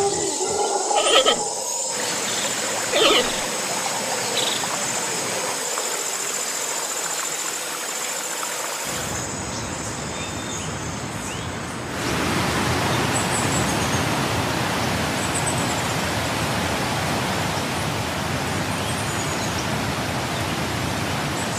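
Steady rush of a waterfall and river rapids, which becomes fuller and louder about twelve seconds in. There are a few brief pitched calls in the first three seconds.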